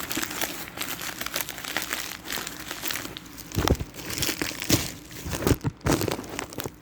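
Shipping packaging crinkling and rustling as a package is worked open by hand, with a few dull handling thumps around the middle.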